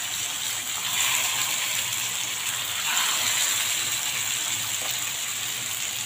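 Masala-marinated sankara (red snapper) fish pieces shallow-frying in hot oil in a pan, a steady sizzle.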